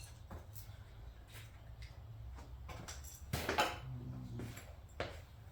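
Scattered small knocks and clicks of parts and tools being handled during ATV reassembly, with a louder clatter about three and a half seconds in.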